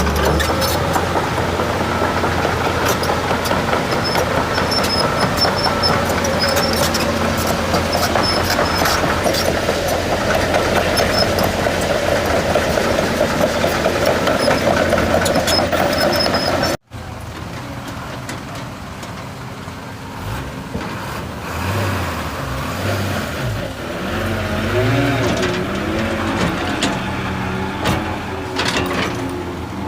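Heavy diesel earthmoving machinery running steadily. About halfway through, the sound cuts off abruptly to a quieter engine sound whose pitch rises and falls.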